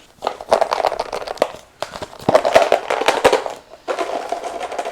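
Dry, crunchy baked granola crackling and clattering as it is stirred in a bowl and clumped raisins are broken up into it, a dense run of small clicks and rustles.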